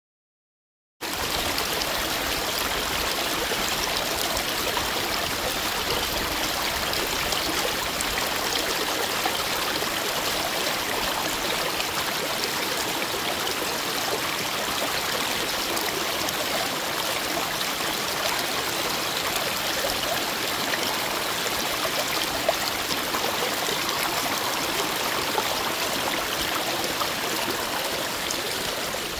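Shallow forest brook rushing over stones, a steady splashing flow that starts suddenly about a second in.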